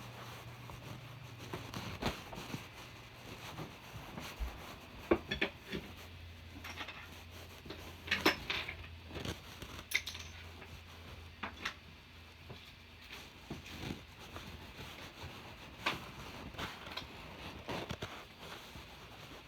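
Irregular light clicks, clinks and knocks of small hard objects being handled, over a faint low hum.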